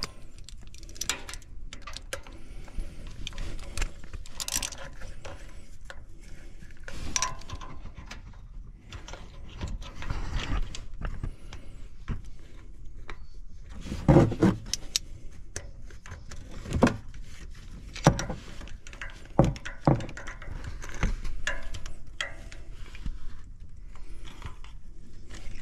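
Small hand ratchet clicking and metal tools clinking while the screws of an aluminum oil filter cover are run in and snugged down, with a few louder knocks about halfway through.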